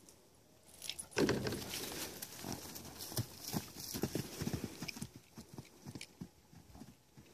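A horse's hooves thudding on dry pasture ground as it breaks into a run after a laser dot. The hoofbeats start loudly about a second in, then come as irregular thuds that fade as the horse moves away.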